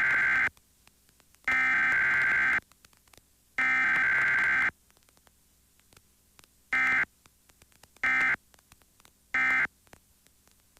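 Emergency Alert System SAME data bursts: three warbling digital header bursts of about a second each, then three short end-of-message bursts. No attention tone or voice message comes between them, as in a Required Weekly Test.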